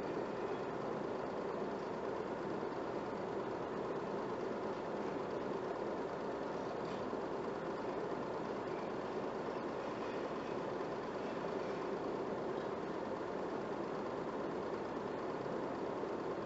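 Film projector running steadily, its motor and film transport making a constant mechanical noise.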